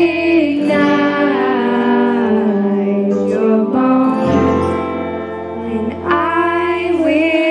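A student band playing a slow pop ballad live. Girls sing held, gliding melody lines over guitars, keyboard and bass.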